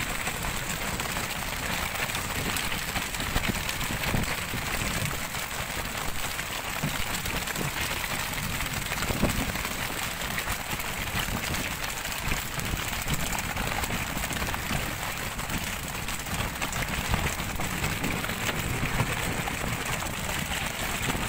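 Steady rush of water and wind at sea, with scattered knocks and slaps as tuna are swung aboard on fishing poles and land on the boat's deck.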